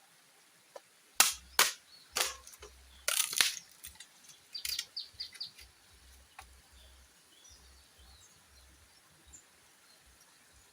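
A quick irregular run of sharp cracks and knocks, about a dozen over four seconds, loudest in the first two seconds and then trailing off into lighter ticks. Faint high bird chirps follow.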